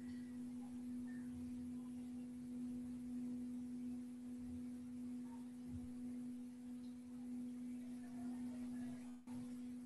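A steady, pure low-middle tone with a faint higher overtone, held without fading, of the kind used as a meditative sound tone. It cuts out for a moment near the end, then carries on.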